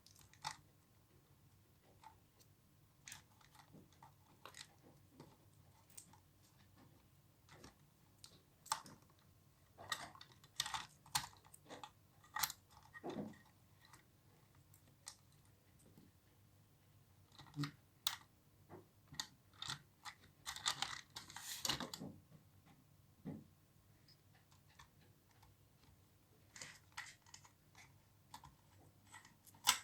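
Hands handling the toy RC rock crawler and its packaging: scattered small plastic clicks and taps, with a denser stretch of rustling about twenty seconds in.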